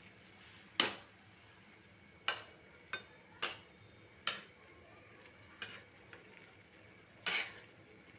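A flat metal spatula knocking and scraping against an aluminium kadhai as fenugreek leaves are stirred. About eight sharp clacks come at uneven intervals, the loudest about a second in and near the end.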